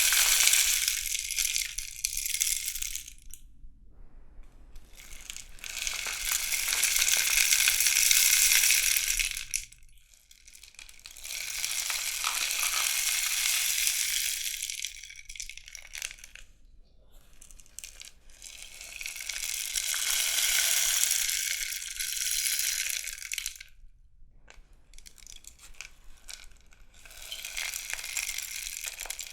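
Rainstick turned over again and again: each turn sends its pellets trickling down inside in a rushing, rain-like patter that swells, runs for several seconds and dies away, about five times.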